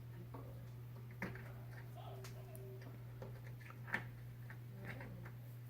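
A few light clicks and taps of small metal parts being handled as a stove burner is screwed back in place, about one, four and five seconds in, over a steady low hum.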